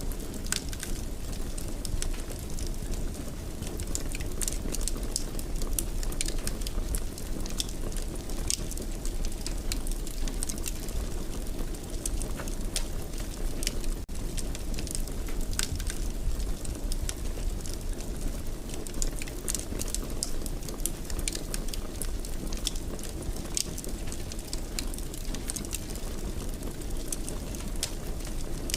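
Wood fire in a fireplace crackling, with frequent sharp pops and snaps over a steady low rumble of flames.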